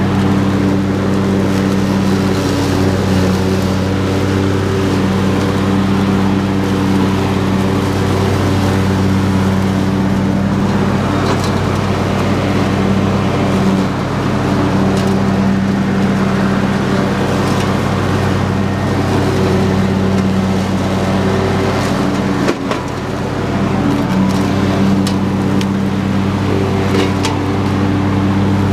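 Husqvarna YTH22V46 lawn tractor's V-twin engine running steadily while its mower deck cuts through tall grass and ferns. About three-quarters of the way in there is a single sharp knock, and the engine sound dips for a moment.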